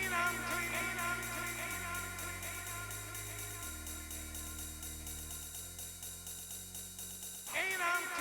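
Electronic acid house music: a synth bass line stepping from note to note about once a second under a fast, even drum-machine hi-hat pattern. A bright synth chord swells in at the start and again near the end.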